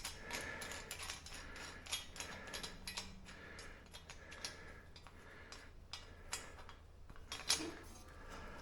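Light, irregular clicks and taps of hand tools and small metal parts being handled as a fitting is tightened down, with one louder click near the end.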